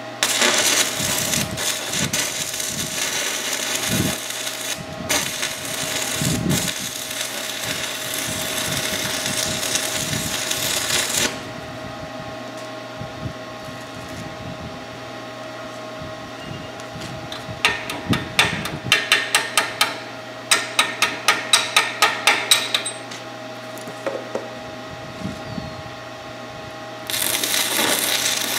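Stick-welding arc from a Forney Easy Weld 110 stick welder crackling and hissing for about eleven seconds, laying weld to build up a worn shaft. After a quieter stretch with a steady hum underneath comes a run of sharp metal taps, three or four a second. Near the end the arc strikes again and crackles.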